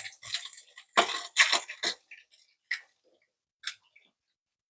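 Chicken wings frying in a pan of oil: a cluster of sharp crackles and spatters in the first two seconds, then a few scattered single pops.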